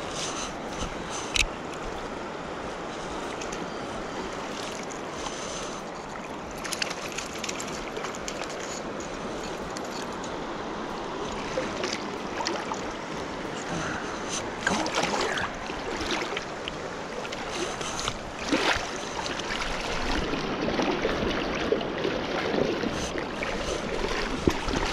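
Steady rush of flowing river water, with a few sharp splashes scattered through it from a hooked trout thrashing at the surface.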